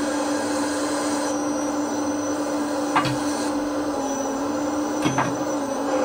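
Servonaut SMB sound module playing a steady diesel excavator engine hum through the speaker of a Magom hydraulic RC excavator, with a high hiss that switches on and off as the arm moves. Two sharp clicks come about three and five seconds in.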